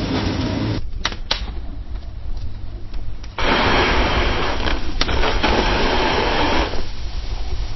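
Fire crackling in a fireplace over a steady low rumble, with sharp pops about a second in and again about five seconds in, and a louder spell of crackling hiss in the middle.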